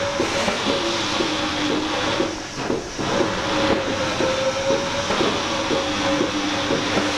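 Lely Astronaut A3 Next milking robot at work: a steady hiss of air with a humming tone and many short clicks, from the machinery driving its teat-cleaning brushes and the arm that brings in the teat cups. The hiss dips briefly about a third of the way in.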